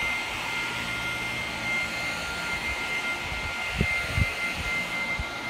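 Corded electric leaf blower running steadily, a high whine over a rushing hiss of air. A few short low thumps come about four seconds in.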